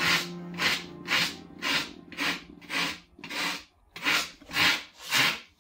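Hand rasp scraping a block of sculpting foam in steady back-and-forth strokes, about two a second. Faint background music fades out partway through.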